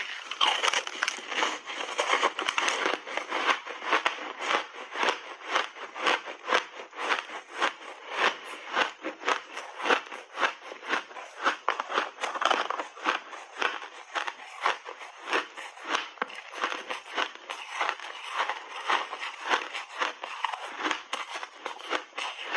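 Purple refrozen snowballs crunching as they are bitten and chewed, picked up by close lapel microphones: a rapid, dense run of crisp crackling crunches that never lets up.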